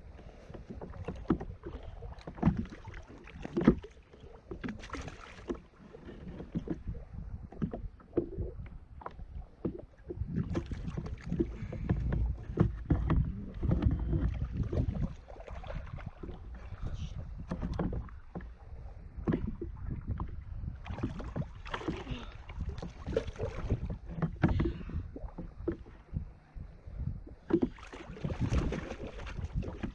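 Water splashing and sloshing around a fishing kayak, with irregular knocks and clicks of gear on the hull. At times there is low rumbling wind on the microphone.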